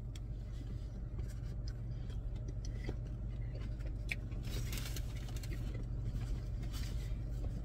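Steady low hum inside a parked car's cabin. Scattered small clicks and a short paper-wrapper rustle come about halfway through, from food being handled.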